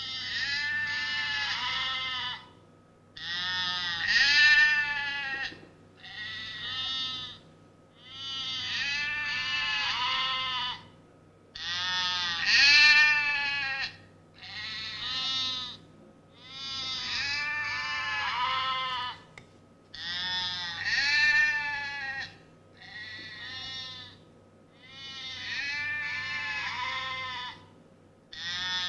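Sheep bleating over and over: about eleven long, quavering bleats, each a second or two long, with short pauses between.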